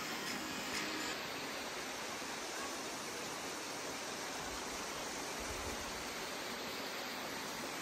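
Steady, even outdoor rushing noise with no distinct events or voices.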